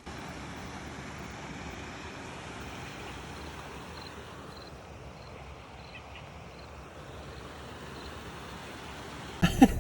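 Steady background hiss with a faint high chirp repeating about twice a second. Loud knocks come right at the end.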